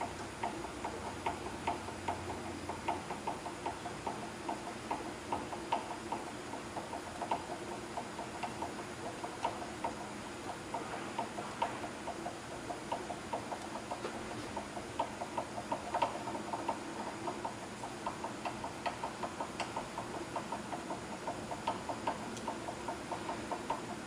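Chevalier vertical milling machine's table being cranked by hand along its longitudinal leadscrew, the crank and screw making a fast, even clicking. The table travels smoothly with no tight spots.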